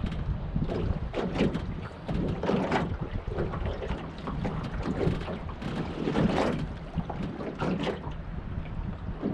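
Wind buffeting the microphone with a steady low rumble, and short irregular rasps scattered through it.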